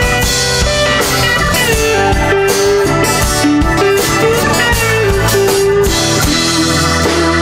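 Live band playing an instrumental passage: acoustic guitar being strummed with a keyboard holding a slow melody line of long notes that step up and down in pitch.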